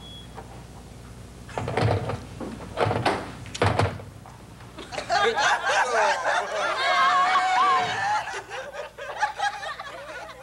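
A few heavy thuds in the first four seconds, then a live audience laughing for a few seconds.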